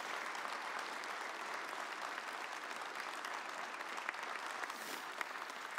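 Church congregation applauding, many hands clapping at a steady level.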